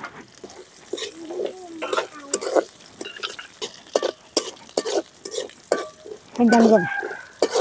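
Steel ladle scraping and clinking against a steel pan as a tempering of mustard seeds, dals, shallots, curry leaves and chillies is stirred while it fries in oil. Near the end a short voice-like call with falling pitch is the loudest sound.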